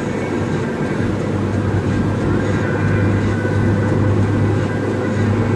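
Cabin noise of a 1994 Honda Civic cruising at highway speed: a steady, even drone of engine and road noise with a constant low hum.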